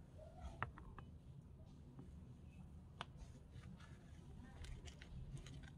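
Faint clicks and a light knock as a miniature iron wok is set down on a small clay stove, the loudest knock about half a second in. A few more faint ticks follow near the end.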